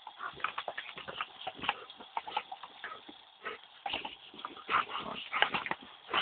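Doberman snapping and biting at the water jet from a garden hose: a fast, irregular run of wet snaps, gulps and splashes.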